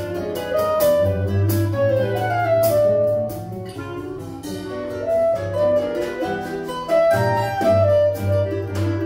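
Choro ensemble playing: a clarinet melody over bandolim and guitar accompaniment, with light drum-kit percussion and cymbal taps.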